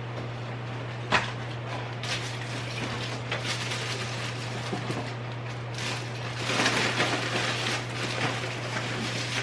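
Objects being handled and rustled: a sharp click about a second in, then irregular rustling that grows busier near the end, over a steady low hum.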